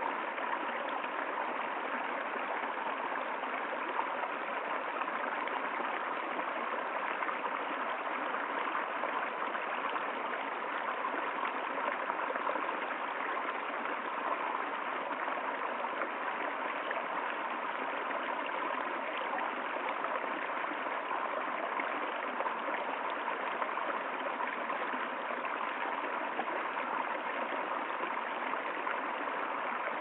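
Shallow woodland stream running steadily over stones and a small cascade, an even, unbroken sound of flowing water.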